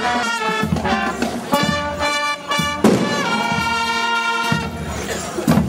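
Brass band playing a tune in sustained, changing notes, with a few sharp drum strokes.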